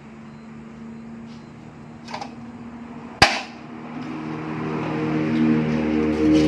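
A single sharp knock, like metal struck during assembly work, about three seconds in, after a smaller knock. Then a hum of several steady tones builds up and grows louder toward the end.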